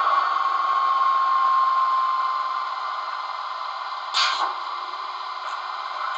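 Sound decoder of a Roco model SBB Re 4/4 electric locomotive playing its running noise with a high brake squeal that slides slightly down in pitch and fades over the first two seconds as the locomotive slows. About four seconds in comes a short sharp hiss, followed by a few faint clicks.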